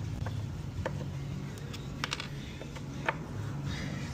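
A handful of light, sharp clicks and taps from handling the table while its drop leaves are taken off, over a low steady hum.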